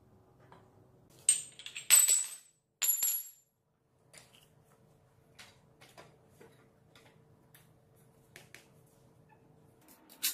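Metal parts clinking and ringing sharply while a small engine is fitted to a bicycle frame, in a few quick clusters about one to three seconds in. After that come only faint scattered clicks over a low hum.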